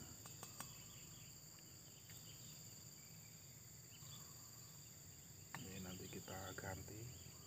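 Near silence with a faint, steady high-pitched insect trill, likely crickets, and a few soft handling clicks.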